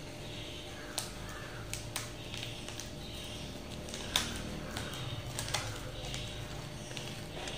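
Scissors snipping open a foil chip packet: a few sharp snips a second or so apart over faint crinkling of the packet.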